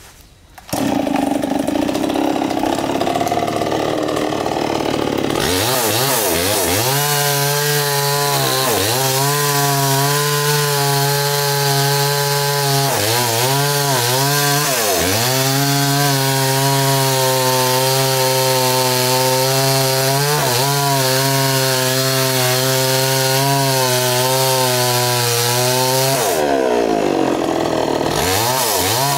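Chainsaw cutting into a coconut palm trunk. The engine comes in abruptly about a second in at lower revs, rises to full throttle about five seconds in and holds there, dipping briefly in pitch several times as the chain bites into the wood.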